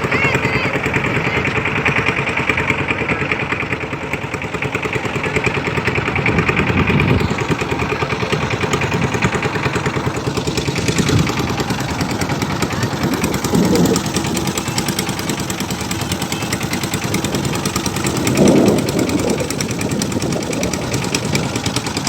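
Engine of a motorised river boat running steadily under way.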